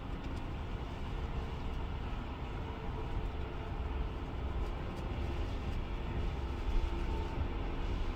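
Steady low rumble of a Nova Bus city bus running, heard from inside the cabin, with a faint hum that grows plainer near the end.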